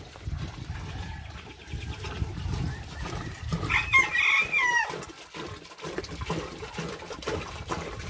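A rooster crows once, about three and a half seconds in, for a little over a second. Under it, water glugs and splashes as it is poured from a plastic jerrycan into a plastic drum.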